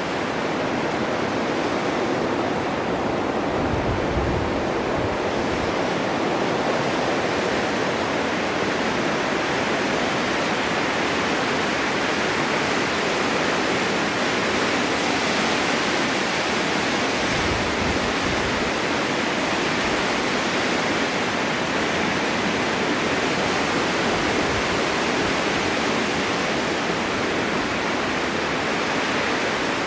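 Snowstorm wind blowing steadily, a dense even hiss, with brief low rumbling gusts about four seconds in and again around eighteen seconds.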